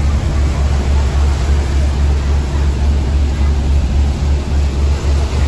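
Tour boat's engine running steadily with a deep, even rumble, under a continuous hiss of wind and rushing water.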